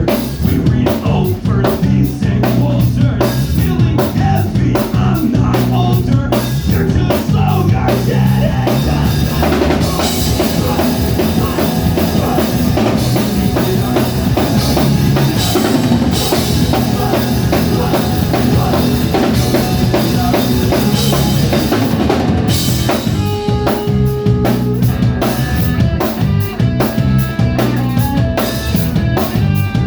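Live rock band playing an instrumental passage: drum kit with bass drum and snare keeping a steady beat under amplified guitar and bass, with a denser cymbal-heavy stretch in the middle.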